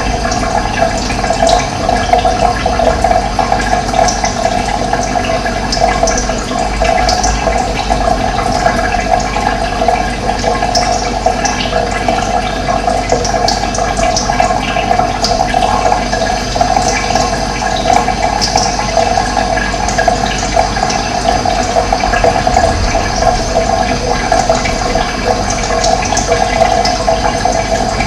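Running water flowing steadily, a continuous rushing with its weight in the middle range.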